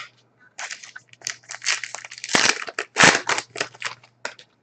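Trading-card pack wrapper crinkling and crackling in the hands as a pack is opened, in a run of irregular rustles, loudest at about two and a half and three seconds in.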